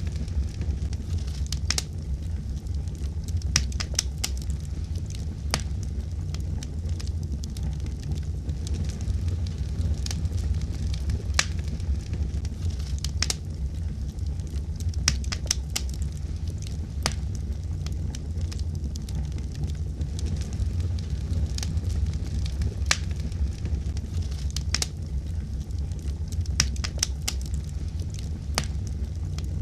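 Wood fire burning with a steady low rumble and frequent irregular sharp crackles and pops.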